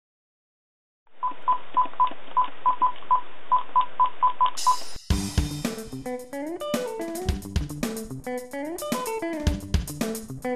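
Keypad beeps from a flip phone, about a dozen short beeps at one pitch pressed at an uneven pace over a thin, telephone-like hiss. About five seconds in, a rock band track with drum kit, bass and guitar starts.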